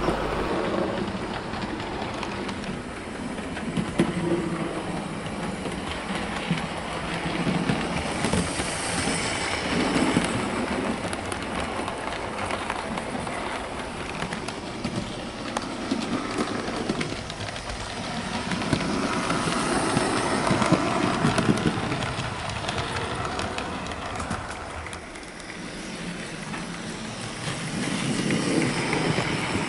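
Bachmann OO gauge USA Dock Tank model locomotive running on the layout's track hauling three coaches: a steady rolling rattle of small wheels on rail with fine clicking over the joints, growing louder and softer as the train passes close by, several times.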